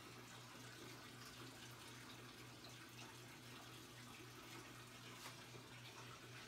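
Near silence: room tone with a steady low hum and faint hiss.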